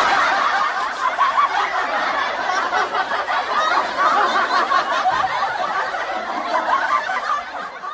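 Audience laugh track: many people laughing together in a steady wash that fades out at the end.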